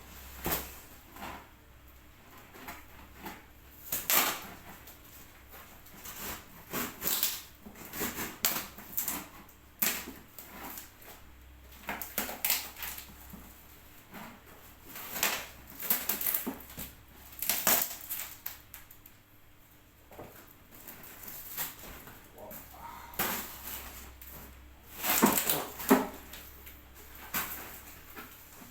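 Shipping package being opened by hand: irregular scrapes, rustles and sharp knocks of cardboard and wrapping being cut and pulled apart, the loudest cluster about 25 seconds in.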